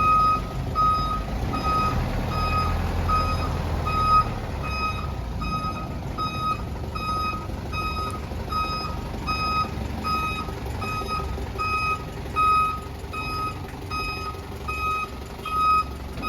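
A vehicle's reversing alarm beeping steadily at one pitch, about one and a half beeps a second, over the low running of the engine as it backs up.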